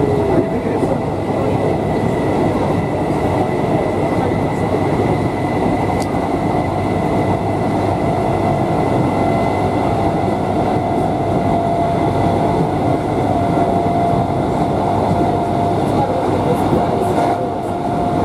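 Inside a class 319 electric multiple unit running at speed: a steady rumble from the wheels on the track, with a constant whine from its G315BZ traction motors that grows a little stronger in the second half.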